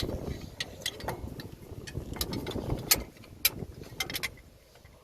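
Irregular clicks and clinks of a tractor's cover plate being handled and lined up against its mounting, over a low rumble.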